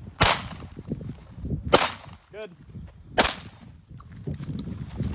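Three shots from a competitor's long gun, evenly spaced about a second and a half apart, each a sharp crack with a short echo.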